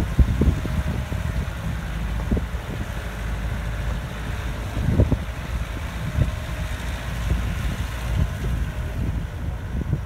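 Motor vehicle driving on a rough dirt road: a steady low rumble of engine and tyres, with knocks and jolts from bumps in the road, the strongest about five seconds in.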